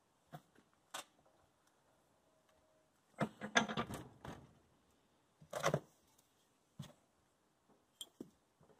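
Metal tools clinking and rattling as they are handled on a workbench: a few separate clicks, a longer clattering run about three seconds in and a shorter one at five and a half seconds.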